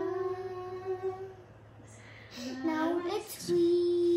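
A young girl singing two long held notes in a vocal exercise: the first dies away about a second and a half in, and the second slides up into pitch about two and a half seconds in and is held steady.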